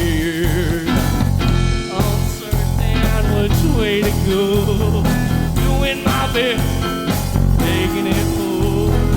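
Psychedelic-leaning rock band playing: drums, bass guitar and guitar, with a wavering, bending lead line over a steady low end.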